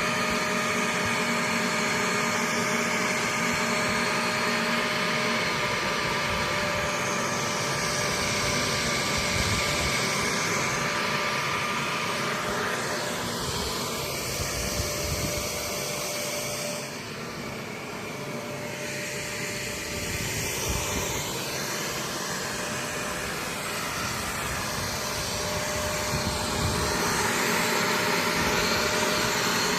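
Vacuum cleaner running steadily, its hiss slowly shifting in pitch, with a brief dip in level about seventeen seconds in.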